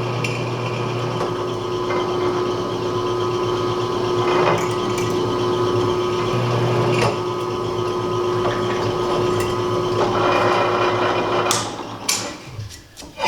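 Drill press running steadily as a small 3/32 bit slowly drills out a broken bolt, with a few sharp clicks from the cutting. The steady hum stops about twelve seconds in, once the bit has broken through the bolt.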